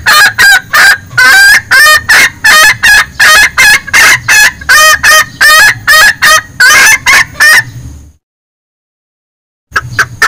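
Lure recording of a female bekikuk junglefowl calling to draw in males: a rapid, loud run of short clucking calls, about two to three a second. The calls cut off abruptly about eight seconds in and start again near the end.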